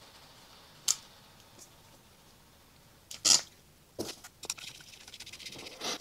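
Small clicks and scrapes of a screwdriver and hard plastic parts as screws are tightened into the ignition coil on a Toyota distributor: one click about a second in, a louder short scrape about three seconds in, then a run of light ticks.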